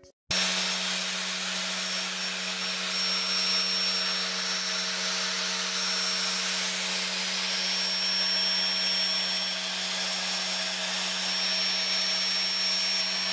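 Angle grinder clamped to a lathe's tool post, running steadily as its wheel grinds a shaft turning in the lathe, with a thin high whine over the motor noise.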